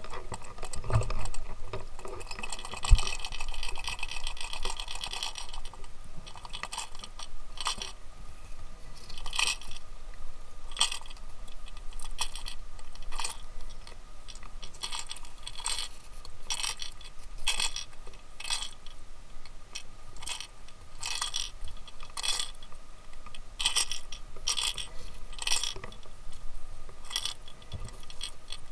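Underwater recording: sharp irregular clicks and ticks, roughly one a second, over a steady low hum, with a hiss for a few seconds near the start.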